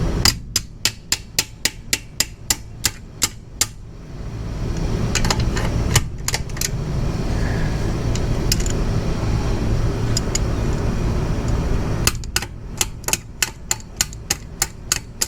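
Socket ratchet clicking, evenly spaced single clicks about three a second, in two runs as a fastener on the motorcycle is worked loose. Between the runs there is a steady low rumble.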